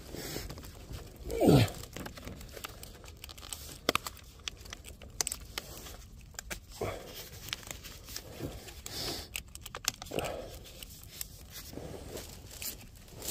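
Crinkling, rustling and tearing of pipe lagging being handled and fitted, made up of scattered short crackles and clicks. A brief, louder voice-like sound with falling pitch comes about a second and a half in.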